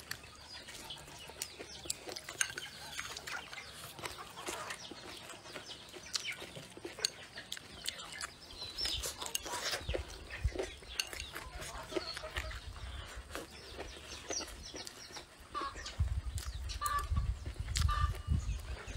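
Chickens clucking now and then, with a few short clucks near the end, over close-up chewing and small clicks of eating.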